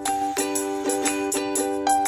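Background music: plucked chords in a steady rhythm, about four strokes a second.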